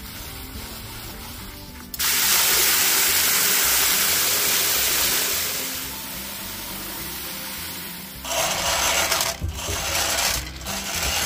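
Water from a garden hose spray nozzle hissing into a plastic bucket, starting suddenly and loudly about two seconds in and easing after about six seconds. Near the end, pellet feed poured from a plastic scoop into a metal chicken feeder rattles in bursts.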